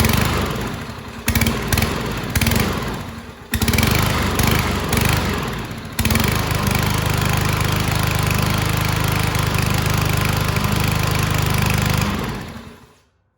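New Yardworks 174cc walk-behind lawn mower engine on its first start: it fires unevenly in surges and dips for about six seconds as it is pull-started, then catches and runs steadily, fading out just before the end.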